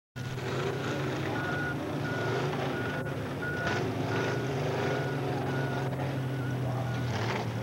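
Engines of off-road drag-race vehicles running with a steady low drone. Over it, a short high beep repeats about twice a second, like a reversing alarm.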